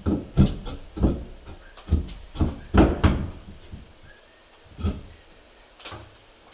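Irregular knocks and thumps of hands and tools working behind a shower unit to fasten a shower valve to a wooden stud. They come thick at first, then only a couple of lone knocks near the end.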